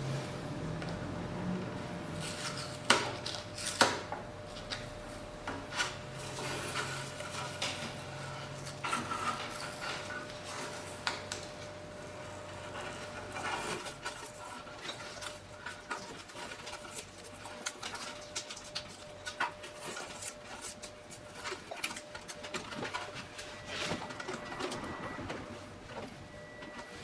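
Scattered clicks, knocks and clatters of hard parts and tools being handled, the loudest two about three and four seconds in, over a faint steady hum that drops away about a third of the way through.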